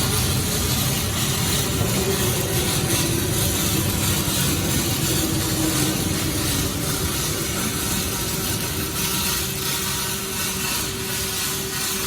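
Welding at work: a steady crackling hiss with a faint steady hum underneath.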